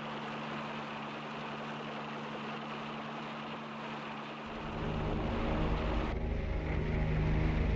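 A steady mechanical drone with hiss. A deeper rumble joins about four and a half seconds in, and sustained music tones build up near the end.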